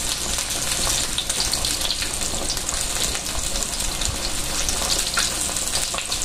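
Chicken pieces frying in hot oil in a wok: a steady sizzle with many small crackles and pops.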